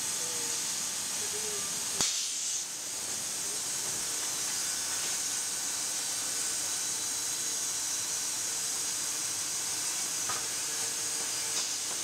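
Steady hiss of sawmill machinery running, with faint whining tones through it. A sharp click comes about two seconds in, followed by a brief brighter hiss.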